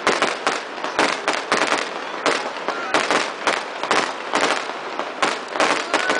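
Fireworks display: a rapid, steady run of bangs from bursting shells, about three a second.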